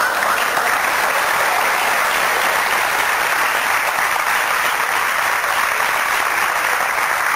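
Studio audience applauding, a dense, steady clapping.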